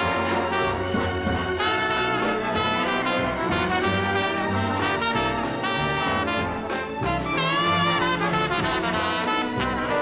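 Brass-heavy music from two separate programs pressed into one stereo record groove: a symphony orchestra on one channel and a jazz band on the other, playing at the same time. Sliding brass notes come in a bit past halfway.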